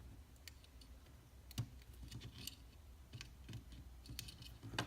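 Light clicks and taps of small cutters and plastic as zip ties are clipped off a toy die-cast truck, with a sharper snip about a second and a half in and a louder one near the end.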